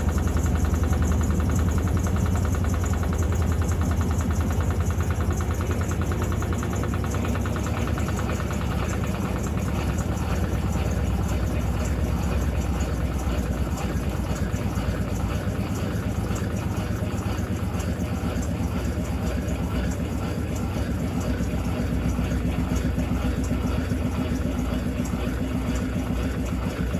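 Electrolux LTC15 top-loading washing machine running, a steady motor hum with a dense fast rattle; the sound shifts slightly about seven seconds in.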